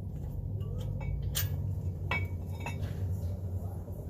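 A few separate light metallic clinks of tools and parts being handled, each with a short ring, over a steady low hum.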